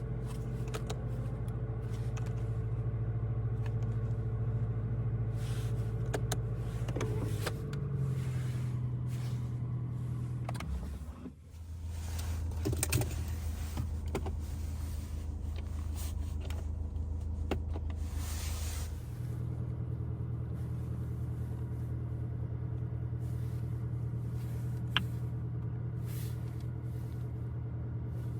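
Volkswagen Golf 8 GTI's 2.0-litre turbocharged four-cylinder engine running at steady revs while driving. The engine note steps up a little about 7 seconds in, drops after a brief dip in level about 11 seconds in, and rises again about 19 seconds in.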